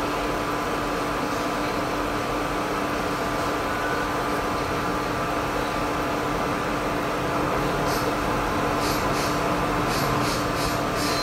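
A steady mechanical hum holding two constant pitches, with a run of faint light ticks in the last few seconds.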